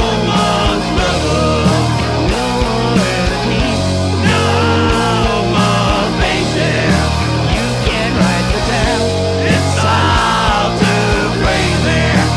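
Rock band playing live in a grunge/punk style: drums, bass and electric guitar in a passage without singing.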